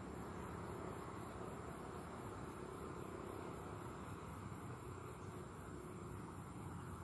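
Faint insect chorus: a steady high trill with a pulsing note above it repeating about four times a second, over a low, even background hum.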